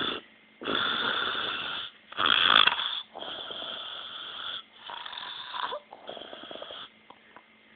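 A man snoring, about half a dozen snoring breaths each about a second long with short gaps between, the loudest about two and a half seconds in.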